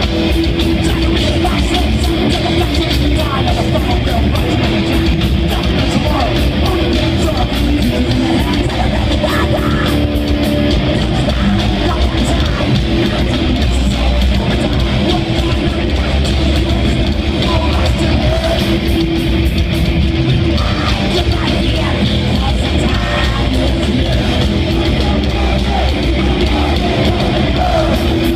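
Thrash metal band playing live at full volume: distorted electric guitars and fast drums under shouted vocals.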